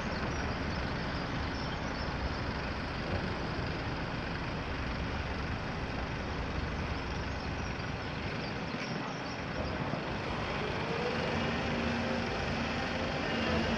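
Diesel engine of a Volvo EC300 excavator running steadily as it works. A steady pitched note comes in about three-quarters of the way through, and the sound grows louder near the end.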